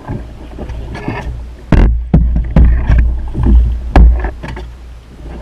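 Canoe being paddled: paddle strokes in the water, with a run of heavy thumps and sharp knocks carried through the canoe's hull, about six of them over two and a half seconds starting nearly two seconds in.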